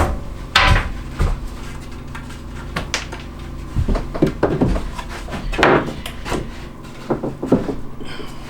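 Irregular wooden knocks and short scrapes, a dozen or so spread unevenly: building boards being handled and set in place, over a faint steady low hum.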